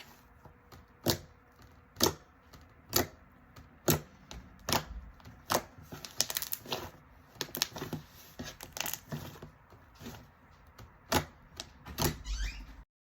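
Fluffy slime being squeezed and poked, giving sharp pops and clicks about once a second, with a denser run of crackling pops about halfway through.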